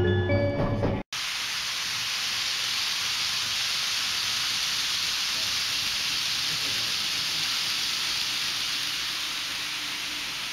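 Chiming mallet-percussion music cut off sharply about a second in, then a steady hiss of N gauge model trains running on the layout's track, easing slightly near the end.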